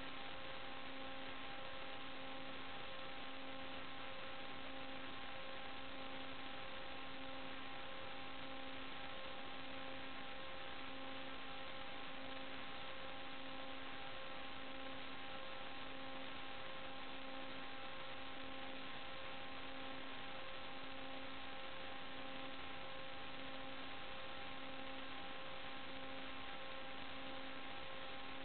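Steady electrical hum with hiss: a set of fixed tones over an even hiss. The lowest tone pulses slowly and evenly. It is noise on the audio of a recorded video feed, not a sound from the scene.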